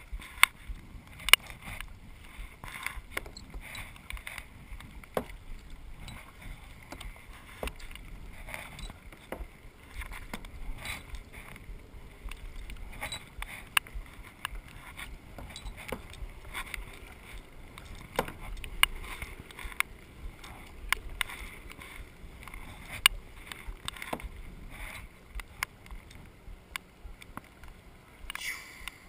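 Kayak paddling on calm water: paddle blades dipping and splashing, with sharp clicks and knocks scattered irregularly throughout, the loudest about a second in.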